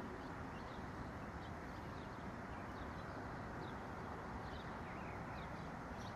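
Faint outdoor ambience: a steady low hiss with distant birds giving short, high chirps here and there.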